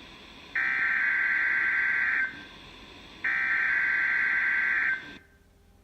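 NOAA Weather Radio Emergency Alert System (SAME) header data tones received on a weather radio: two high-pitched buzzing bursts of about a second and a half each, a second apart, that open a Required Weekly Test. The tones stop about five seconds in, leaving faint hiss.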